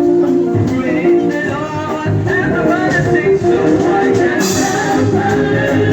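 Live church band playing a reggae gospel song with drums, bass and singing.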